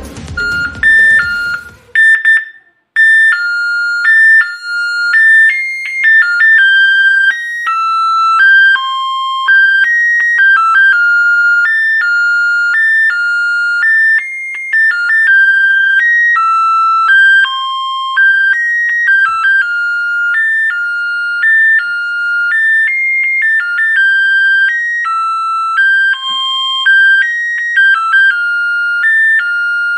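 A simple electronic melody of plain beeping tones, one note at a time, played through a small loudspeaker by a homemade melody-generator circuit. It starts about a second in and carries on as a repeating tune.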